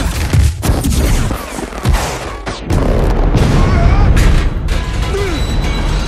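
Action-film battle sound effects: a rapid run of explosions and metal crashes over a heavy rumble, with the film score underneath. There is a short lull about two and a half seconds in before the blasts and crashing start up again, louder and more continuous.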